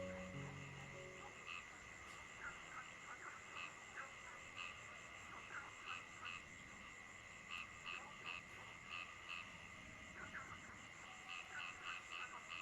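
Frogs calling at night: short calls repeat irregularly, about once or twice a second, over a steady high drone. The last notes of a piece of music fade out in the first second.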